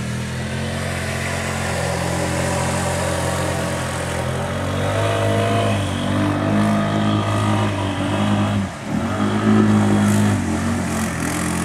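ATV engine running and revving: its pitch climbs about five seconds in, dips sharply for a moment near the nine-second mark, then comes back up.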